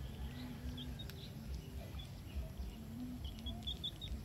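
Outdoor ambience: small birds giving scattered short, high chirps, several in quick succession about three and a half seconds in, over a steady low rumble.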